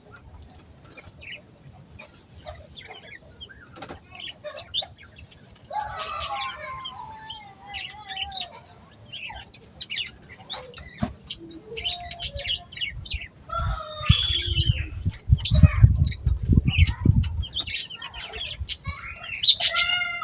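Aviary birds chirping and calling in short, scattered notes, with a longer call sliding downward about six seconds in. Wings flap heavily for several seconds past the middle.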